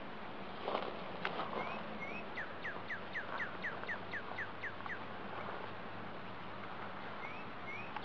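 A songbird singing a fast run of about a dozen downward-slurred notes, roughly four a second, with a few short rising chirps before and after. A steady low hum runs underneath.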